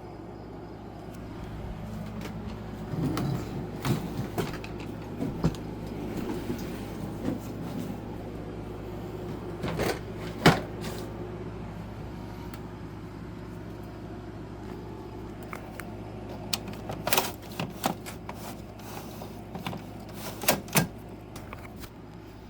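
Scattered sharp knocks and clicks, the loudest about halfway through and more in clusters near the start and end, over a steady low hum.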